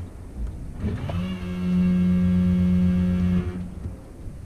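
A motor hums, starting with a short rise in pitch about a second in, running steady for about two and a half seconds, then stopping.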